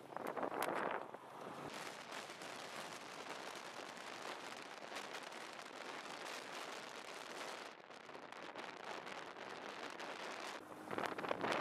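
Wind buffeting the microphone of a camera moving along the road with the riders: a steady rushing, crackling noise, louder for about the first second and again near the end.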